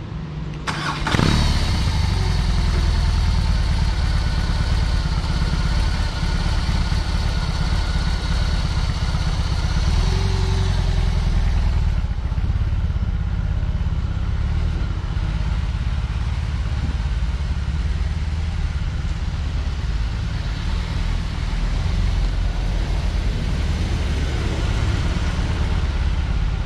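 BMW R18's 1802 cc boxer-twin engine running at low speed while the motorcycle is slowly turned around. The engine gets louder suddenly about a second in, then runs fairly steadily.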